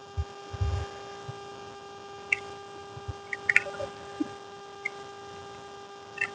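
Eating sounds: sparse wet mouth clicks and smacks, with a few low thumps near the start, over a steady electrical hum.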